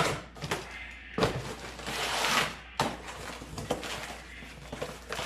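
Handling and rummaging through parts and packaging: a sharp knock about a second in, a longer rustling or scraping noise around two seconds in, and a few lighter clicks.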